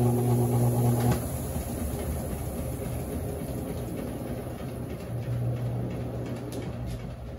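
Consul CWS12 top-loading washing machine running mid-cycle. A steady motor hum stops about a second in and gives way to a rougher, noisier churning sound. The hum comes back about five seconds in and drops out briefly near the end.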